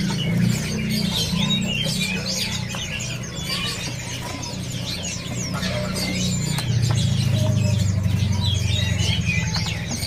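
Many caged songbirds chirping and trilling at once, dense overlapping calls, over a steady low hum that grows louder about two-thirds of the way through.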